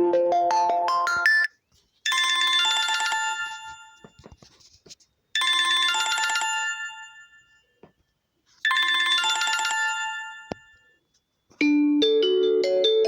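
TCL LX phone ringtones playing through the phone's speaker: one melodic ringtone ends, then a bright chime chord rings three times, about three and a half seconds apart, each fading away, and near the end a new melodic ringtone starts.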